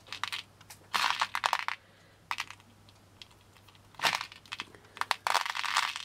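Loose pearl beads clicking and rattling against each other in a tray as a hand stirs and picks through them, in about five short bouts of clicking.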